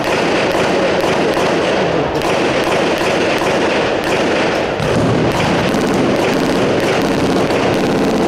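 Rapid gunfire from assault rifles and machine guns, sharp shots cracking several times a second over a dense, continuous din.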